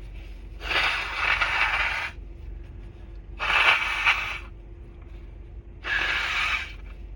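Three forceful bursts of air through a cold-congested nose, each a noisy rush about a second long. The first is the longest and the middle one the loudest.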